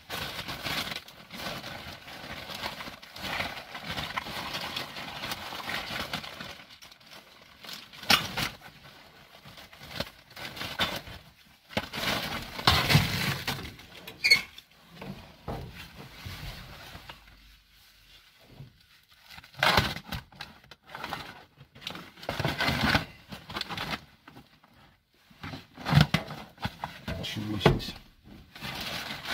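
Plastic rubbish bags rustling and crinkling in irregular bursts as gloved hands rummage through them, with occasional knocks and scrapes of items being moved.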